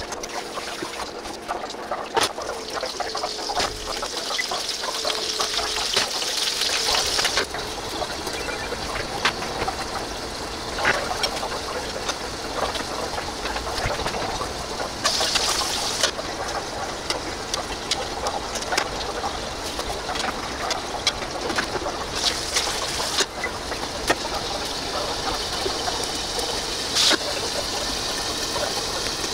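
Kitchen tap water running into a sink, turned on and off several times, with scattered clinks and knocks of dishes or utensils over a faint steady hum.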